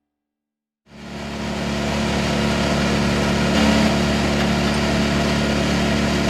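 Bandit 1890XP wood chipper running steadily after starting up suddenly about a second in, its engine and drum making a constant mechanical drone.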